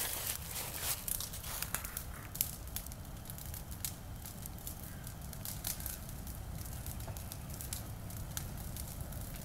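Fire burning wooden structure with sharp crackles and pops, thickest in the first couple of seconds, over a steady low drone of the flames.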